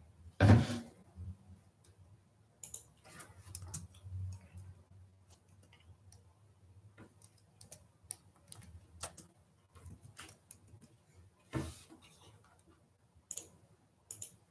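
Irregular clicks and taps of a computer mouse and keyboard during browsing, with a louder thump about half a second in and another near twelve seconds.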